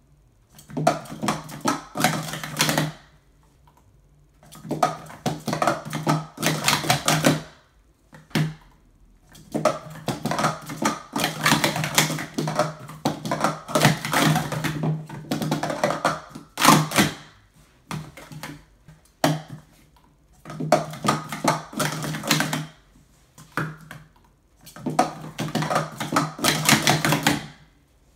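Plastic Speed Stacks sport-stacking cups clattering rapidly as they are stacked up and down on a mat, in five runs of about two to seven seconds with short pauses between.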